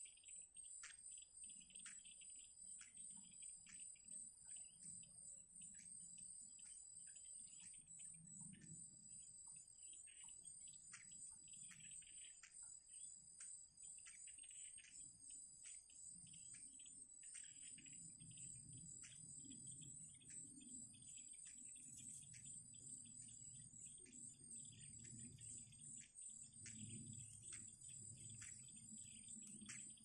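Faint, steady high-pitched drone of insects with a pulsing buzz, and many short high chirps from birds scattered throughout. A low rumble underneath grows stronger in the second half.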